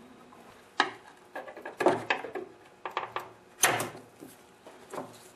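A steel E-clip being worked onto a shaft end against a new ball bearing with a screwdriver: a series of irregular metallic clicks and scrapes, the loudest about three and a half seconds in.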